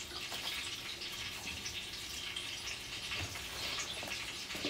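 Broth sloshing and dripping in a steel pot as a thin piece of injera is dipped in just long enough to moisten it, with small splashy ticks over a steady wet hiss.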